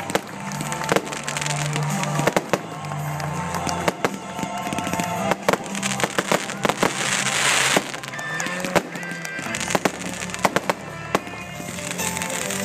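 Fireworks going off: many sharp cracks and pops, with a hissing rush about seven seconds in, over music playing.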